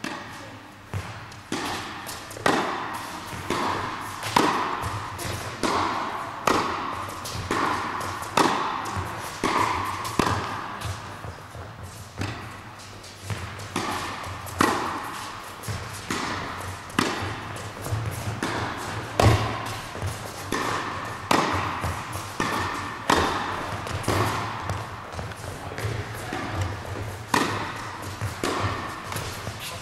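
Tennis rally in an indoor hall: a racket strikes the ball and the ball bounces on the court about once a second, each sharp hit echoing briefly in the hall.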